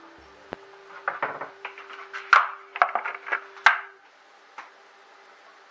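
Kitchen clatter at the stove: a run of sharp knocks and clinks of cookware and utensils being handled, with a few louder clanks in the middle, over a faint steady hum; it settles about four seconds in.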